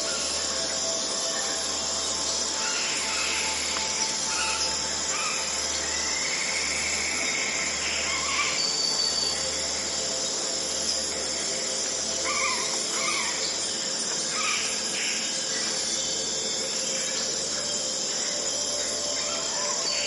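Insects chirping in a steady chorus, with short scattered bird calls, over a soft sustained synthesized drone.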